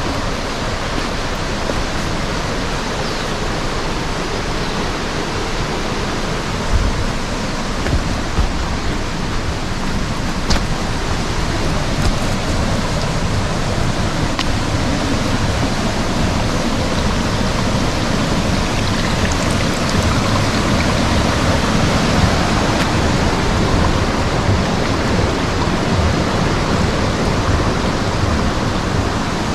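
Peguche waterfall: a loud, steady rush of falling water, with a few low thumps about seven to eight seconds in.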